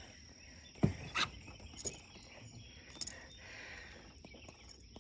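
A steady high insect trill in the background, broken by a few short, sharp knocks about a second in, again shortly after, near two seconds and at three seconds.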